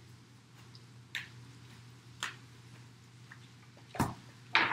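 Tarot cards being shuffled and handled: a few scattered soft snaps and flicks of the cards, the two loudest near the end, over a faint steady low hum.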